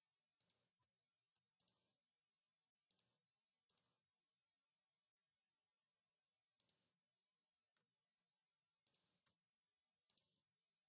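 Faint computer mouse clicks, most of them a quick press-and-release pair, about eight times, with near silence between.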